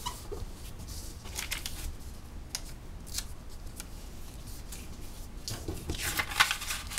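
Tyvek tape and paper rustling and crinkling as fingers press and smooth the tape down, in short scratchy strokes with a denser flurry of rustling about six seconds in.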